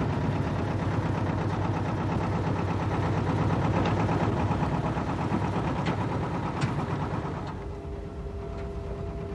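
An engine running steadily at idle, with a few faint clicks over it. It gets quieter about three-quarters of the way through, and a thin steady hum note comes in.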